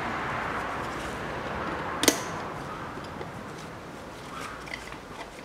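Pliers working at the drive-shaft end in the wheel hub: one sharp metallic click about two seconds in and a few lighter clicks near the end, over a steady hiss that slowly fades.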